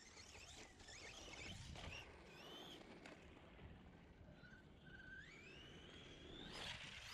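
Faint whine of a distant Redcat Volcano EPX Pro RC truck's brushless electric motor rising in pitch as the truck speeds up, twice, the second climb long and steady, over quiet outdoor background noise.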